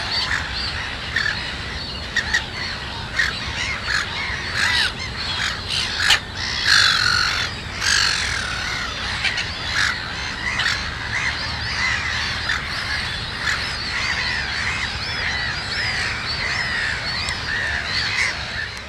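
Black-headed gulls calling: many short, harsh calls overlapping in a steady chorus, with a few short louder noises mixed in between about four and eight seconds in.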